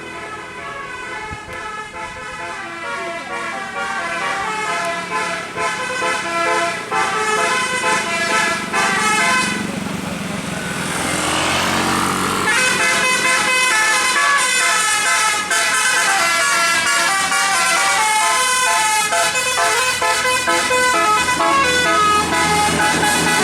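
Bus 'telolet' multi-tone air horn playing a melody of stepping notes, with a rising siren-like sweep about halfway through; it is louder in the second half.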